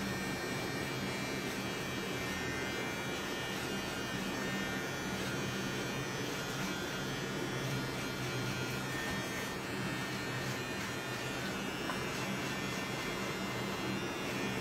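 Electric hair trimmer running with a steady buzz as it cuts a client's hair.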